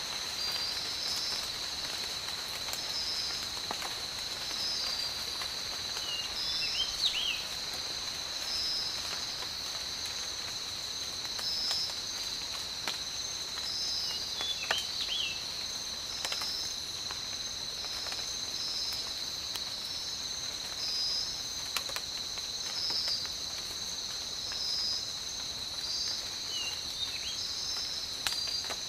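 Tropical rain ambience: a soft patter of rain with scattered drips under a steady high insect drone and a pulsing insect call about once a second. A short chirping call sounds three times.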